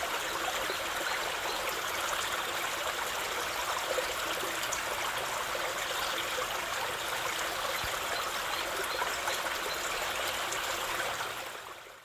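Running water trickling and splashing steadily. It fades out near the end.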